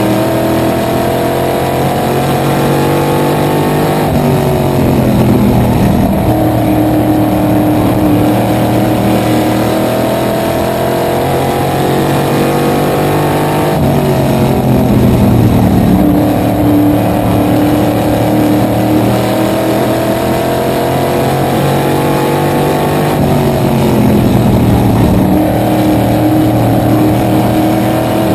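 Small-block V8 of a supermodified race car at racing speed, heard from the open cockpit. The engine note climbs along each straight and drops sharply three times as the driver lifts for the turns.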